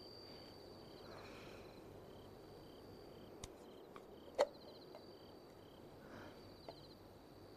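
Faint crickets chirping in an even, repeating pattern. A sharp click comes about four and a half seconds in as the lid of a small metal box is opened.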